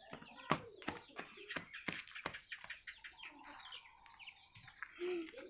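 Chickens clucking and small birds chirping, with scattered short clicks and knocks.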